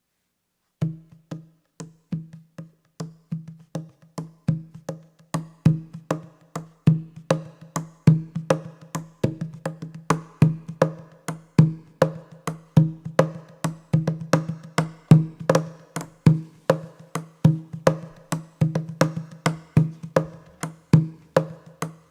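Percussion music: a low, single-pitched percussion instrument struck in a steady rhythm. It starts about a second in at roughly two strokes a second and grows busier, with quicker, brighter strokes added in the second half.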